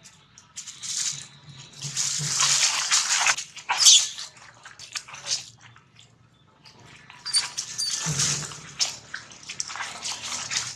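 Baby macaque screaming in repeated hoarse, noisy bursts, with one shriller squeal about four seconds in and a short lull around six seconds. These are distress cries as an adult macaque drags it by the tail.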